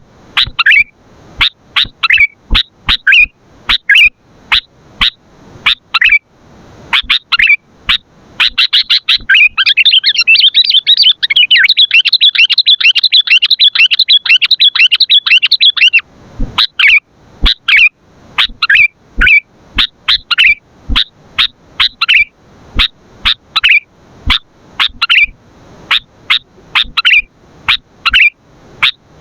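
Sooty-headed bulbul (kutilang) calling in a series of sharp, loud chirps, about two a second. For several seconds in the middle it breaks into a dense, fast chatter, then returns to single chirps.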